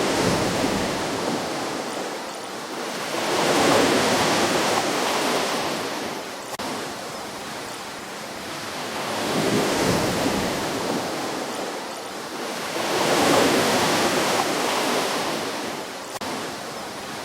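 Ocean waves washing onto a shore, each one swelling and falling away, about one every four to five seconds.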